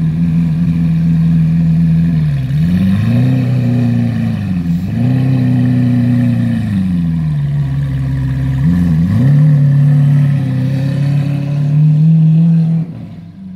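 Lamborghini Aventador S V12 idling, low and steady, its pitch sagging and swelling a few times as the car pulls out of its parking space. The sound drops away near the end.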